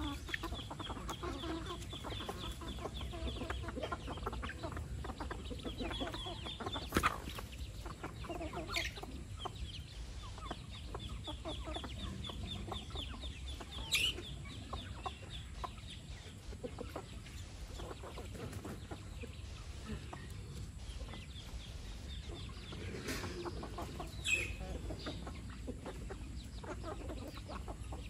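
A flock of chickens clucking, with chicks peeping in runs of short, evenly repeated high notes. A few sharper, louder calls that sweep down in pitch break in now and then.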